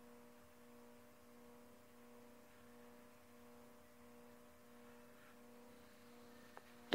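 Faint, steady electrical hum of a power transformer, a set of even tones, which the owner takes for a transformer struggling through a winter storm amid two days of brownouts. A small click near the end and a sharper one right at the end.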